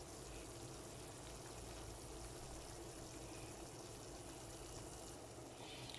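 A covered pot of palm nut soup simmering faintly and steadily on the stove.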